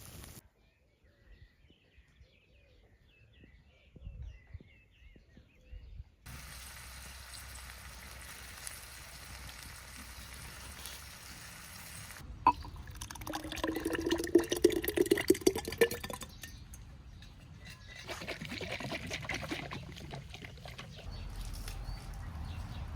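Liquid being poured into a vessel, with splashing and a tone that rises as the vessel fills, about halfway through; faint bird chirps early on and a steady outdoor hiss around it.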